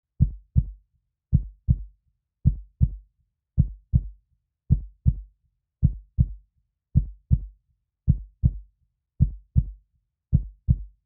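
Slow heartbeat sound effect: deep lub-dub thumps in pairs, the first of each pair louder, about one beat a second with silence between.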